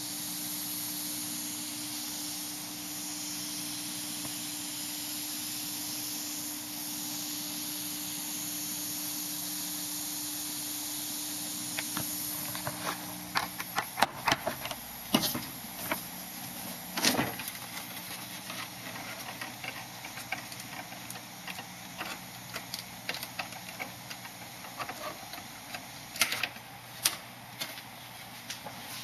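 Steady electrical hiss with a low hum, then from about halfway on, irregular clicks and knocks of handling over a quieter hiss.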